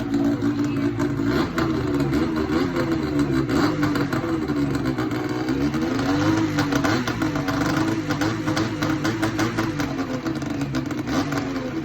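Ski-Doo 600 EFI two-stroke twin snowmobile engine running through an aftermarket race can exhaust. Its engine speed rises and falls several times in light revs.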